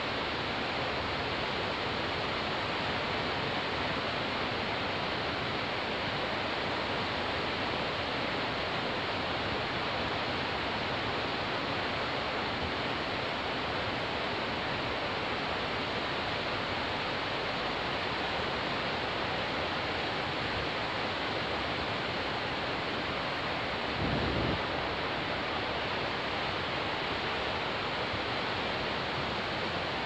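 Caspian Sea surf: a steady, even wash of waves, with a brief low thump late on.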